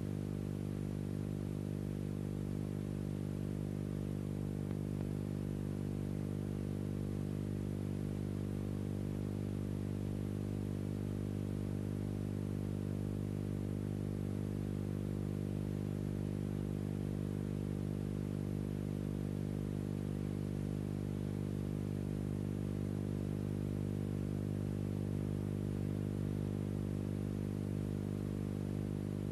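A steady low hum with several tones stacked on top of one another, unchanging throughout.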